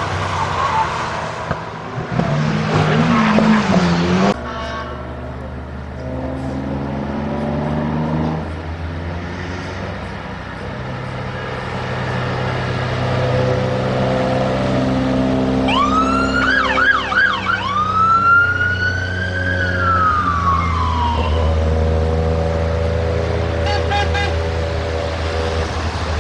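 A classic Chevrolet Chevelle passes with its engine running. Then a Dodge Charger police car's engine runs as it drives by, and about 16 seconds in its siren sounds: a quick warbling yelp, then one long wail that rises and falls away, followed by a few short chirps near the end.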